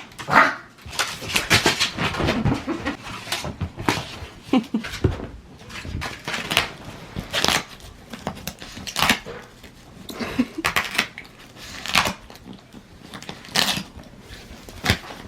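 A dog tearing and chewing apart a styrofoam plate: irregular crunching and crackling of the foam.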